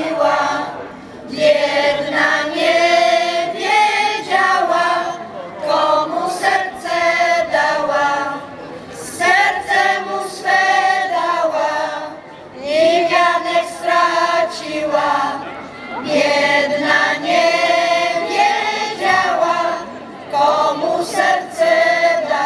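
Folk choir of mostly women's voices singing a Polish folk song a cappella, in phrases of a few seconds with short breaks between them.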